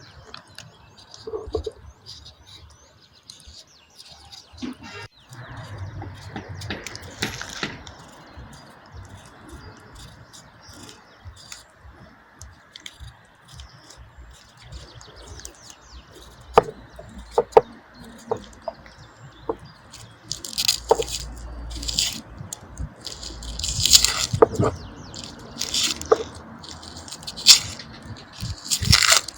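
Food being handled by hand: scattered sharp clicks and knocks, then from about two-thirds in louder wet, squelching and rustling bursts, over a steady outdoor background with faint birdsong.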